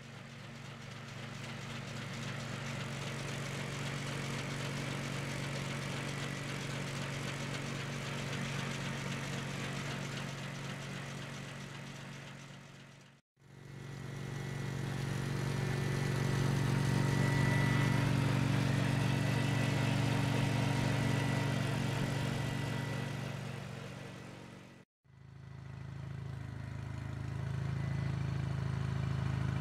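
Honda HT3813 lawn tractor engine running steadily, driving the snowblower's auger through its belt drive. It comes in three stretches split by two brief cuts, about 13 and 25 seconds in, and a faint high whine runs through the middle stretch.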